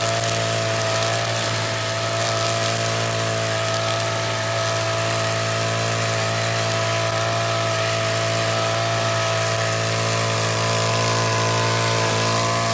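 Petrol brush cutter with a line-trimmer head running steadily at a constant speed while it cuts grass.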